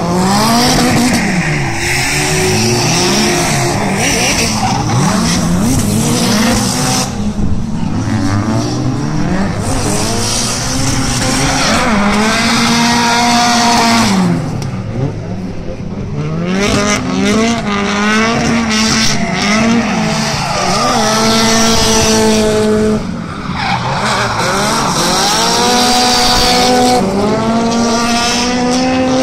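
Drift cars' engines revving hard up and down again and again as the cars slide sideways, with steady tyre squeal under it. The sound drops briefly twice, about halfway and again near three-quarters of the way through.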